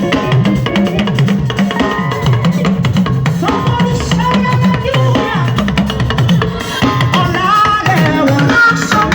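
Upbeat gospel band music with a steady drum kit beat and a bass line; a gliding melody line joins about three and a half seconds in.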